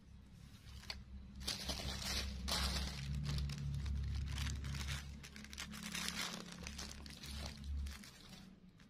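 Thin clear plastic sheeting and paper crinkling and rustling as they are handled and smoothed flat by hand, in a run of rustles from about a second and a half in until near the end.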